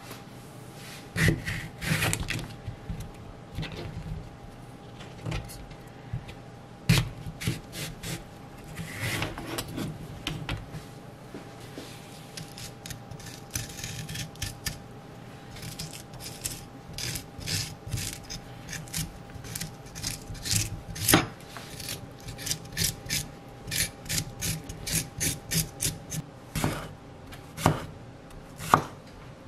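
A kitchen knife cuts cucumbers on a cutting board with scattered knocks and clicks. In the middle, a small metal scoop scrapes the seeds out of the cucumber halves. Near the end there are louder knife knocks on a wooden board, all over a faint steady hum.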